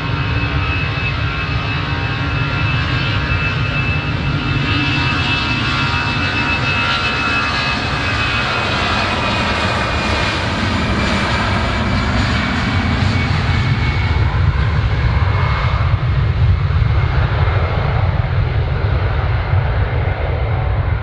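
Jet airliner's engines passing close by: a steady heavy rumble with a high whine on top that slowly falls in pitch and fades in the second half while the rumble holds.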